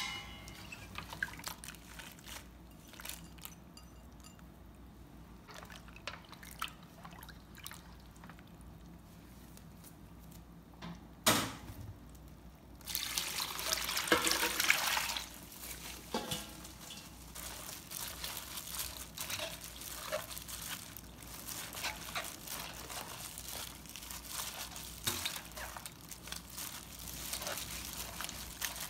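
Red chili-pepper brine for water kimchi being stirred in a stainless steel bowl, with faint sloshing. About eleven seconds in comes a sharp metal clank, the loudest sound. Then the brine is poured from a ladle over napa cabbage, followed by splashing and squelching as gloved hands mix the cabbage in the liquid.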